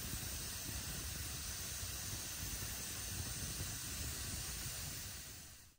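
Split-log wood fire burning in a metal fire pit, with a steady hissing rush of flames and a low rumble beneath, cutting off suddenly near the end.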